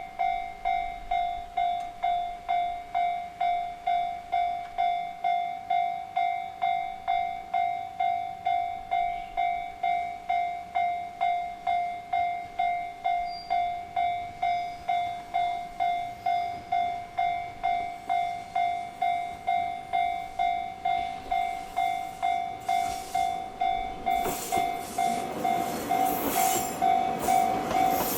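Japanese railway level-crossing warning bell ringing, a steady electronic ding repeating about twice a second. Over the last several seconds a train approaches and runs over the crossing, its rumble and wheel noise building from about 21 s and loudest near the end.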